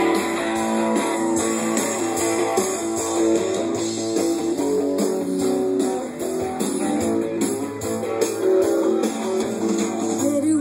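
Guitar-led music with strummed and plucked notes.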